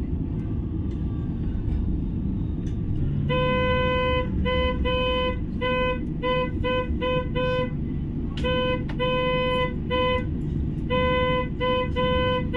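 A single-pitched vehicle horn honked in many rapid toots, short and long mixed, in three bursts starting about three seconds in, over the steady low rumble of a city bus in motion.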